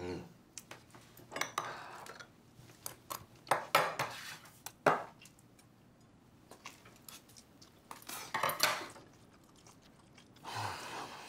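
Chopsticks and a metal spoon tapping and clinking against ceramic bowls as a person eats, with quiet chewing between. A few sharp clicks stand out about four to five seconds in.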